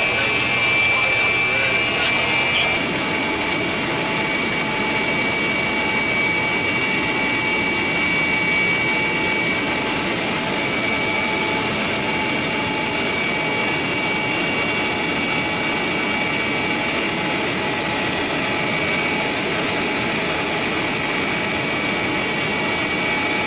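Aircraft cabin noise: a steady turbine engine roar with a thin high whine over it, shifting slightly about three seconds in.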